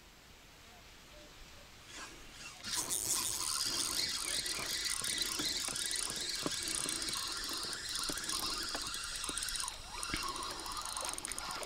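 Spinning reel working against a hooked fish on a bent rod: a sustained high buzzing with rapid clicks that starts about three seconds in, the sound of the reel's drag and spool under the fish's pull.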